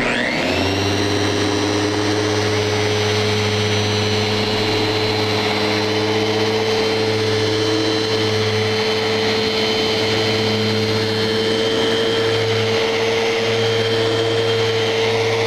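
Festool random orbit sander spinning up and then running steadily with a hum and a high whine under hand pressure on the wood, on its final 1500-grit sanding pass.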